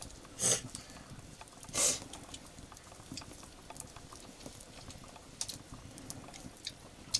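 Quiet eating by hand from metal plates: small scattered clicks and scrapes of fingers and rice against the plates, with two brief hissing sounds, about half a second and two seconds in, that are the loudest things heard.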